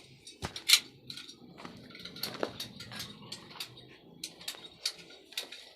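Irregular light clicks and taps, with a sharper click about three quarters of a second in.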